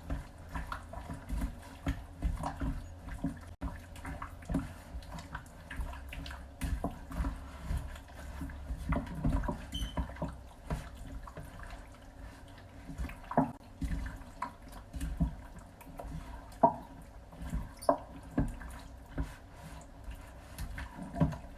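Chunks of chicken breast being mixed into a thick yogurt and spice marinade in a bowl: irregular wet squelching and squishing, with short clicks throughout.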